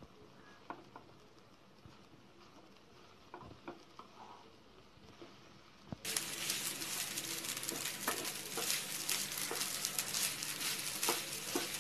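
A spatula taps and scrapes faintly through rice in a nonstick pan. About six seconds in, a loud, steady sizzle of rice frying begins suddenly, with spatula clicks as the fried rice is stirred and tossed.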